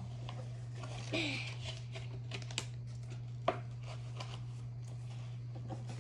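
Pokémon card-pack packaging being handled: scattered light clicks and crinkling, with one sharper tap about three and a half seconds in, over a steady low hum.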